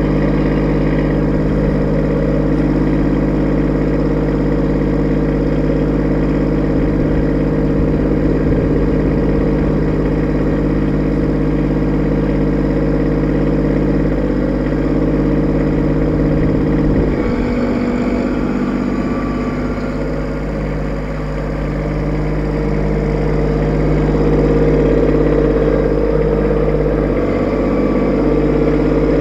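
Kubota B2601 compact tractor's three-cylinder diesel engine running steadily. Its note changes about halfway through and grows louder near the end as the tractor moves up with its loader.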